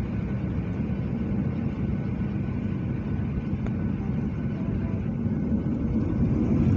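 Steady low rumble of an airliner's engines and airflow heard from inside the passenger cabin in flight, growing a little louder near the end.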